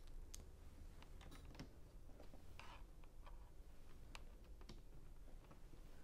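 Faint, scattered clicks and taps of plastic Lego pieces being handled and pressed together, a few a second, with a brief rustle about two and a half seconds in.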